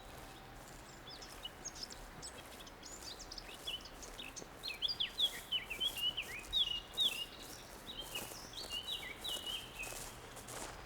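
Songbird chirping in quick runs of short, sharp notes, busiest in the middle stretch, over a faint steady background hiss.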